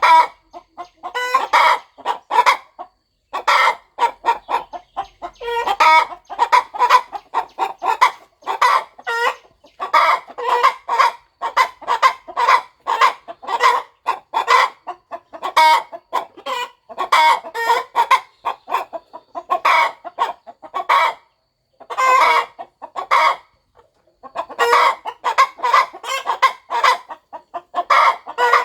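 Broody hen clucking in quick runs of short calls, with brief pauses between the runs.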